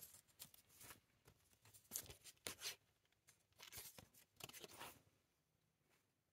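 Faint, intermittent rustling of cardboard swing tags being handled and folded open, in a few short scratchy spells that stop about five seconds in.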